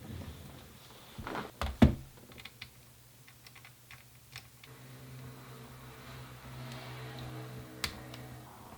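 Small screwdriver and tiny screws clicking and tapping against the plastic body of a Canon EOS Rebel SL1 as the screws are put back in, with a sharper knock about two seconds in. In the second half a steady low hum runs for about four seconds, with one more click near the end.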